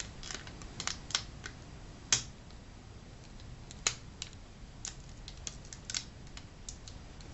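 Scattered small clicks and crackles of fingers picking and peeling adhesive tape from the plastic edge of a laptop screen panel, the two sharpest about two and four seconds in.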